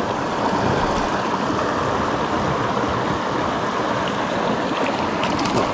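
Shallow mountain creek running over rocks: a steady, even rush of water, with a few faint ticks near the end.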